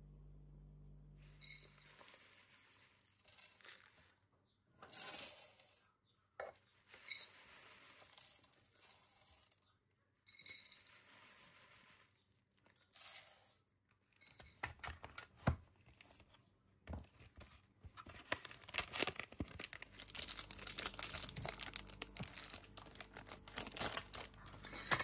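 Foil wrapper of a chocolate bar crinkling and tearing as it is peeled open by hand, a dense run of sharp crackles over the last several seconds, after scattered softer rustles earlier on.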